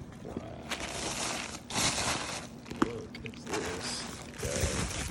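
Bubble wrap and packing plastic being pulled and rustled off a bass guitar: repeated crinkling and scraping, a sharp click about halfway through, and a few short squeaks of plastic rubbing.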